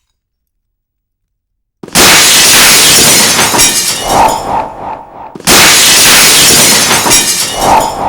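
Two loud glass-shattering sound effects, about three and a half seconds apart, after about two seconds of silence. Each is a sudden crash that trails off into tinkling, falling shards.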